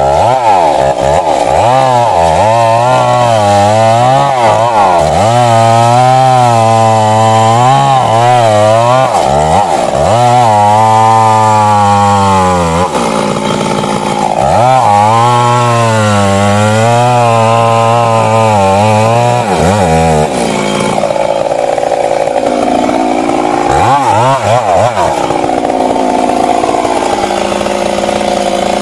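Stihl MS 382 two-stroke chainsaw running loud under load in wood, its engine speed rising and falling as it cuts. About 20 seconds in, the steady engine tone drops away into a rougher, less even sound.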